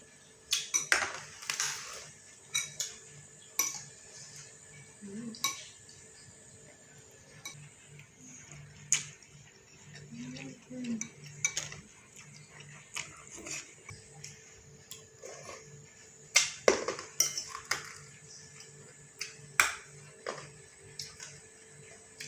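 Cutlery clinking and scraping against a dish while eating, in irregular sharp clinks about a second or so apart, with a loud cluster near the start and another past the middle.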